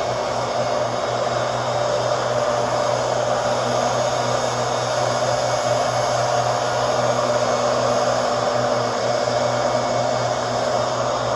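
Leaf blower running steadily at a constant speed, a continuous rushing of air over a low motor hum.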